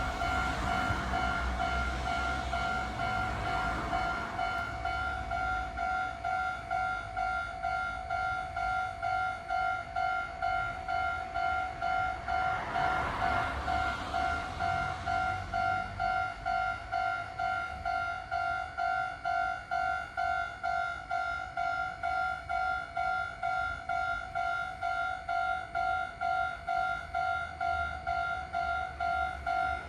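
Level-crossing warning bell ringing steadily in a fast, even, repeating ding, throughout. A train passes over the crossing in the first few seconds and another from about twelve to sixteen seconds in. A low rumble comes up near the end.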